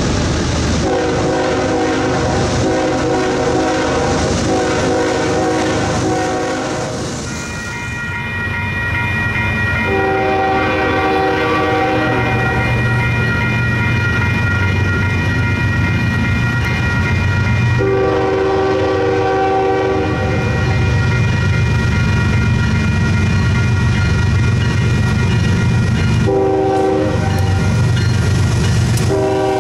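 Freight diesel locomotive horn sounding the grade-crossing signal as the train approaches: two long blasts, a short one, then a long one starting near the end. Under the horn, the locomotives' low rumble grows louder as they close in. A horn chord with loud hiss also sounds in the first several seconds.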